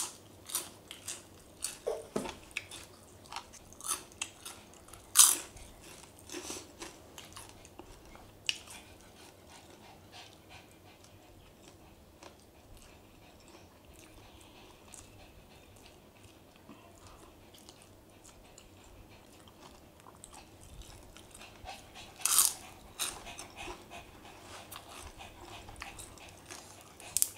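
Close crunching bites and chewing of crisp food, a run of sharp crunches in the first eight seconds and again near the end, with quieter chewing between.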